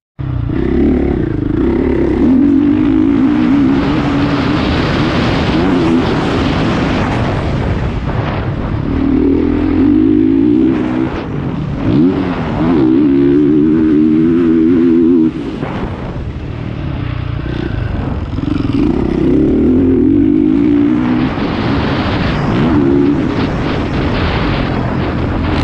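Honda CRF450R single-cylinder four-stroke motocross engine under hard riding, revving up and falling back with the throttle and gear changes, heard from on board the bike. It briefly drops off throttle about fifteen seconds in.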